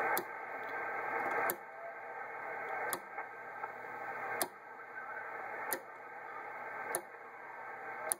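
Static hiss from a ham radio transceiver's speaker, with the rotary inductor switch of an MFJ-949B antenna tuner clicking to a new position about every second and a half, seven clicks in all. The loudness of the hiss steps at each click and falls overall: the operator is stepping the inductor to find the setting where the received noise is loudest, the sign of the closest antenna match.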